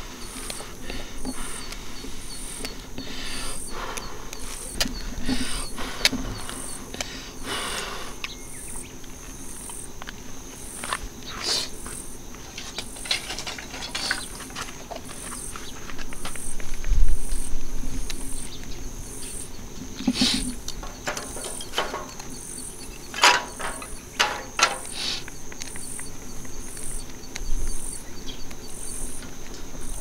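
Insects chirping outdoors in an even, high-pitched pulse a little more than once a second. Scattered clicks, scrapes and a soft thump come from gloved hands working wood shavings and kindling in a stainless steel fire pit.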